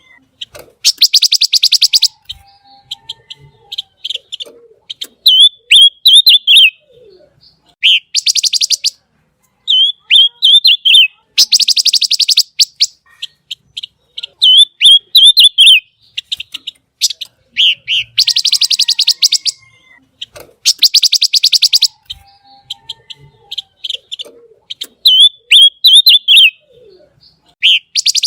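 A pancawarna songbird singing 'gacor', in full continuous song. Loud rasping rapid trills about a second long (besetan) alternate with clusters of short, sharp whistled notes (tembakan), repeating every few seconds.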